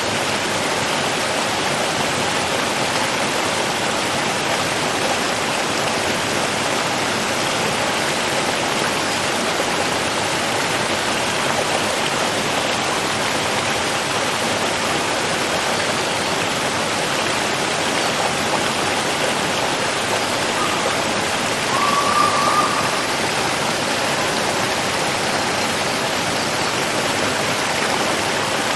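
Steady rushing of flowing water, an even unbroken wash. About three-quarters of the way through, a short tone sounds briefly over it.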